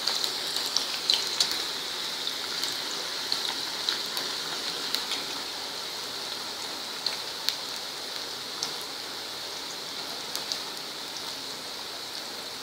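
Grated potato deep-frying in hot oil: a steady sizzle with frequent small crackles and pops, the pops thinning out after the first few seconds.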